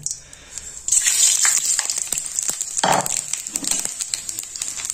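Whole spices (cinnamon, green cardamom, star anise) hitting hot mustard oil in a wok, which starts to sizzle suddenly about a second in and keeps sizzling with crackles as the spices fry. A single louder knock comes near the middle.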